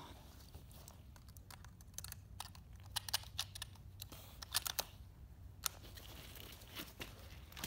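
Handling noise around a bolt-action rifle and a prone shooter: a run of sharp clicks and rattles about two seconds in, more about four and a half seconds in, and a lone click near the end, with rustling of clothing on grass.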